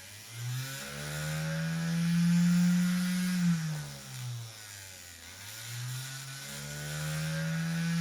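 Homemade tornado siren sounding its 'attack' mode: a low wailing tone that winds up, holds and winds down, then winds up again about five seconds in.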